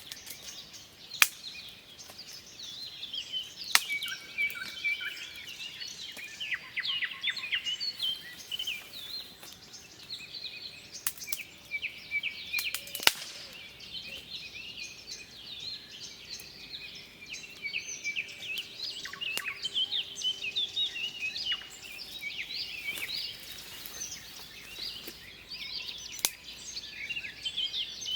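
A chorus of small songbirds chirping and singing without a break, over a faint outdoor hiss. A few sharp clicks stand out: one about a second in, one near four seconds, one about halfway and one near the end.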